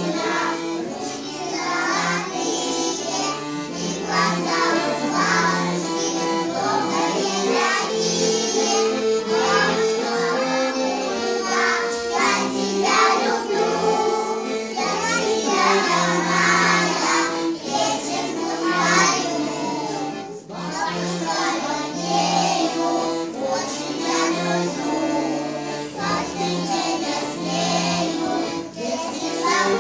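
A group of young children singing a song together over steady musical accompaniment.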